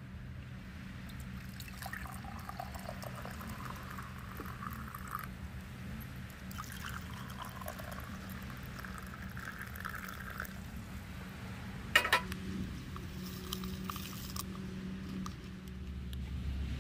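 Hot water poured from a stainless steel saucepan into a ceramic mug, in two spells of a few seconds each. About twelve seconds in comes a single sharp knock, the loudest sound, over a steady low hum.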